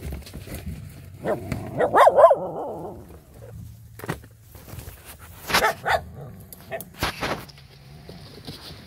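A dog gives a short, high-pitched bark about two seconds in. Twigs and debris rustle and snap a few times later on.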